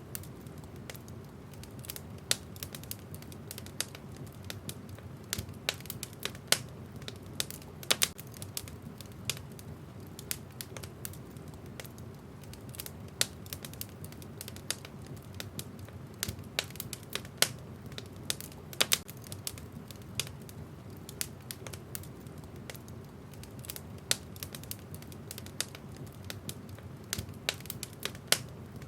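Wood fire burning in a fireplace, its logs crackling with irregular sharp pops, a few of them loud, over a steady low rumble.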